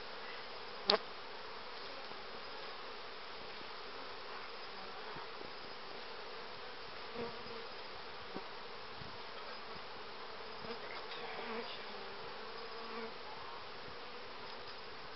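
A colony of Carpathian honey bees buzzing steadily over an open hive. A sharp click comes about a second in, and a few soft knocks and rustles follow later as the hive parts are handled.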